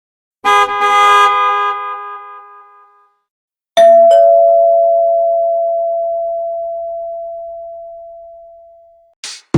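Nokia 1600 phone tone audio: a bright bell-like chime about half a second in that rings out and fades over a couple of seconds. A two-note ding-dong chime follows, the second note a little lower, and it rings on and fades slowly for about five seconds. Music from the next tone starts at the very end.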